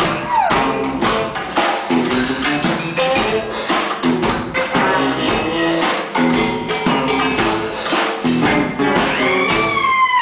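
Live band music: accordion chords over a fast, rhythmic clatter of percussive taps and clicks. Near the end a high voice slides up and down over the music.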